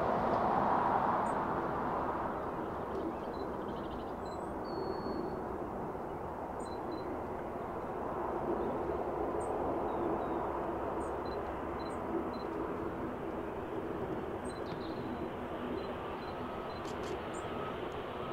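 A turboprop airliner's engine noise fading away over the first few seconds, leaving a steady distant airport rumble. Small birds chirp in short, repeated calls throughout.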